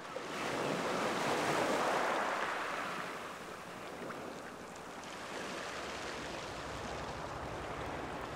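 Sea water splashing and wind rushing, as heard out on open water from a small boat. The sound fades in from silence over about the first second, swells briefly, then holds steady.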